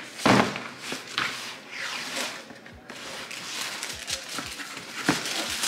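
Cardboard shoe box being opened and handled, with paper crinkling. A sharp knock comes about a quarter second in, followed by rustling and several soft thumps.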